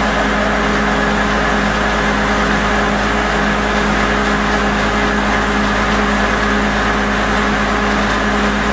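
Truck-mounted core drilling rig running: a loud, steady engine and machinery hum with an unchanging pitch.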